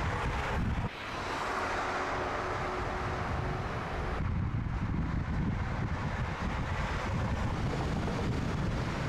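Volkswagen Golf R Mk8.5 prototype driving, its engine and tyre noise mixed with heavy wind rumble on the microphone. The sound changes abruptly about a second in and again about four seconds in.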